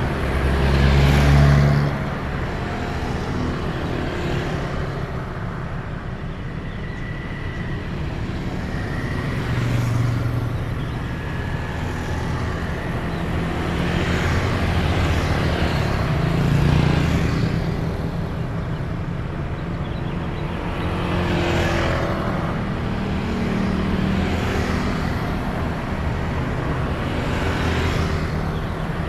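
Road traffic of motorcycles and cars passing one after another, each swelling and fading over a steady engine rumble, with a louder pass-by every few seconds.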